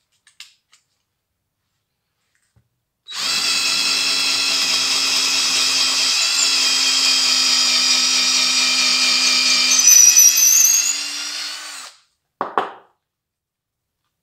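Power drill with a twist bit running steadily for about nine seconds, then cutting off. A short knock follows just after.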